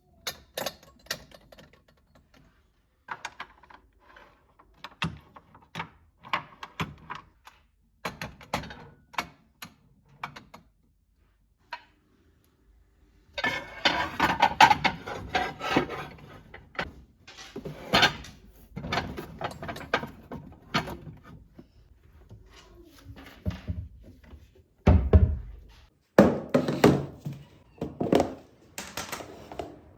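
Kitchenware being handled and set down: a series of sharp knocks and clatters on hard and wooden surfaces, with a busier stretch of rubbing and clinking midway and one heavy thump near the end.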